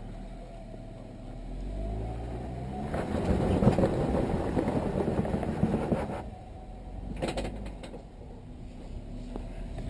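Off-road vehicle's engine running low and steady, then revved hard for about three seconds as the rig works over rock, dropping back suddenly, followed by a few short knocks.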